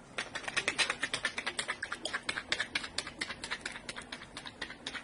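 Thin lake ice cracking and snapping under a person running across it: a rapid run of sharp clicks, many a second, loudest about a second in and slowly thinning out.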